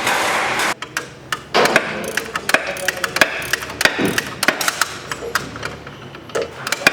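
Irregular metal clanks, knocks and clicks of hand tools working the bolts inside a mixer auger's shaft, with a noisy scrape in the first second.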